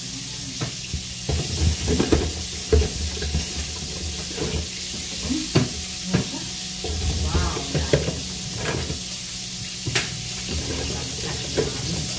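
Drinking glasses being handled and set down during unboxing: scattered light clicks and knocks over a steady hiss.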